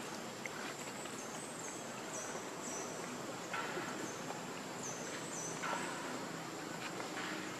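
Outdoor ambience dominated by a steady high insect drone, broken by repeated short notes that dip in pitch about twice a second. Two brief rustles come about halfway through.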